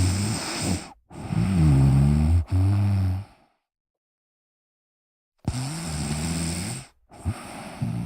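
A person snoring: two rounds about five seconds apart, each a pair of deep, buzzing breaths.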